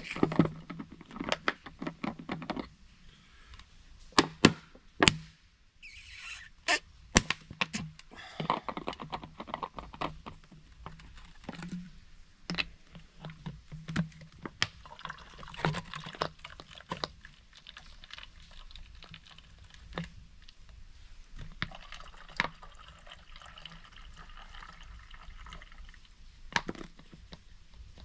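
Water being squeezed through a Sawyer Mini filter, pouring and dripping into a container. Frequent clicks and knocks come from handling the plastic pouch and filter.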